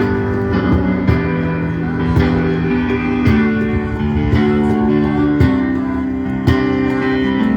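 Music led by guitars with bass and drums, steady held chords that change every second or two under a regular beat.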